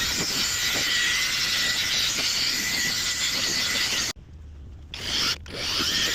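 Small handheld power tool running on a headlight lens with a steady whine over a dense grinding hiss. It cuts off abruptly about four seconds in and comes back briefly before starting up again near the end.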